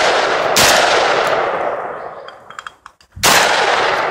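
Tromix-customised Saiga-12 semi-automatic 12-gauge shotgun firing at clay targets: two loud shots, one about half a second in and another about three seconds in, each trailing off in a long echo, following on from the ringing of a shot just before.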